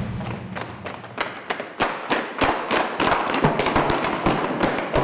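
Many soldiers' boots running on concrete: a rapid, uneven clatter of footsteps.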